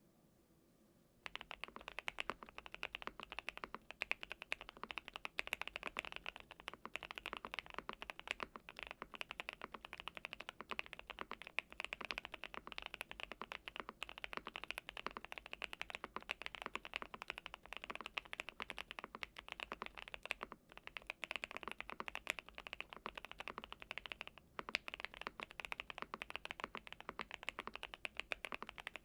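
Continuous typing on a GMK81 mechanical keyboard with lubed Gateron Oil King linear switches, translucent Cherry-profile keycaps and tape-mod and foam dampening. A dense run of keystrokes starts about a second in, with two brief pauses later on.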